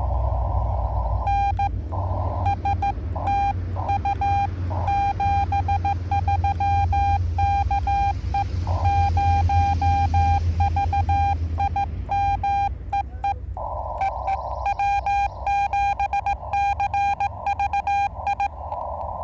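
Morse code from a Yaesu FT-891 ham transceiver: one steady tone keyed on and off in dots and dashes. From about a second in to about 13 seconds it sounds clean, like the sidetone of code being sent with paddles. After that it sits in a narrow band of receiver static, as an incoming station's code. A low rumble runs underneath.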